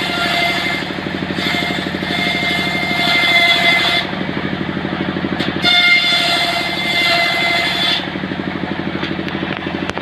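Large circular sawmill blade ripping trembesi wood, driven by an engine that runs steadily with a fast pulsing beat. The blade whines high while it is in the cut, twice: from about a second and a half in to four seconds, and again from about six to eight seconds. Between the cuts it spins free.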